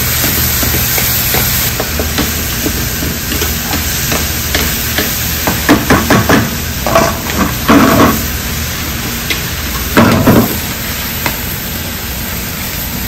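Fried rice being stir-fried in a pan over a gas flame: wooden spatulas scrape and knock against the pan over a steady sizzle and low hum. Louder bursts of scraping come about six to eight seconds in and again around ten seconds.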